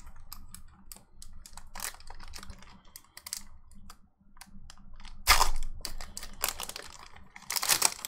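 Foil Pokémon booster pack wrapper being crinkled and torn open by hand: a run of small sharp crackles, with two louder bursts of crinkling about five seconds in and near the end.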